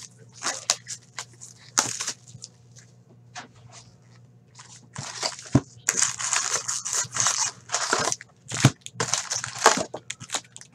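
Plastic shrink wrap crinkling and tearing off a sealed hobby box of Upper Deck hockey cards, then the cardboard box being opened and the card packs rustling as they are pulled out. An irregular run of crackling and rustling handling noises, busiest in the second half.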